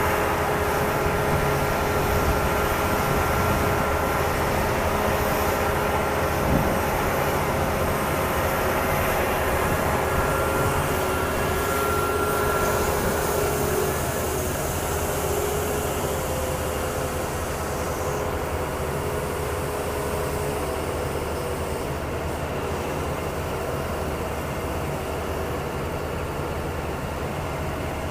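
Steady rumble of engines or heavy machinery with a few faint steady whines, easing off a little in the second half.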